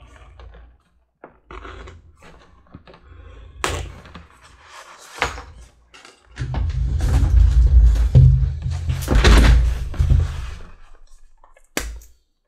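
A scratch awl scratching over leather as a pattern is traced, followed by a few seconds of knocking and a low rumble from leather and tools being handled on a workbench, and a sharp knock near the end.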